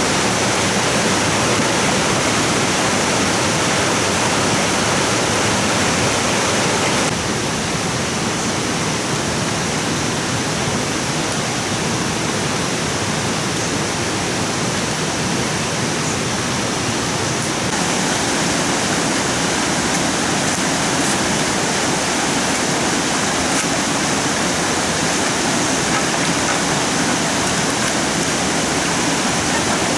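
Steady rushing water, with small shifts in tone about seven seconds in and again near eighteen seconds.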